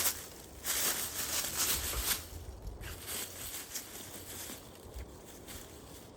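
Footsteps walking down a mountain trail, an uneven series of crunching and scuffing steps.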